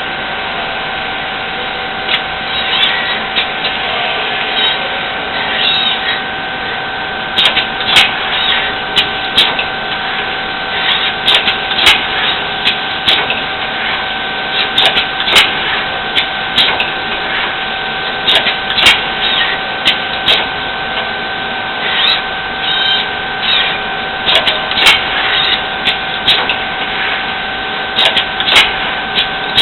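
CNC robotic tube-bending machine running: a steady whine of two pitches over a mechanical hum, with frequent clicks and clunks.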